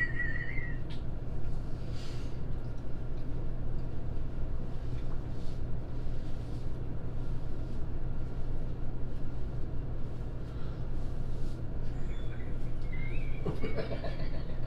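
Steady low hum of background room noise, with faint scattered clicks over it. A short high vocal sound comes at the very start and a brief voice near the end.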